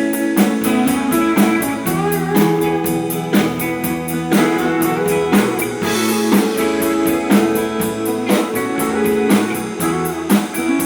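Live band playing a song's instrumental intro: guitars over a drum kit keeping a steady beat.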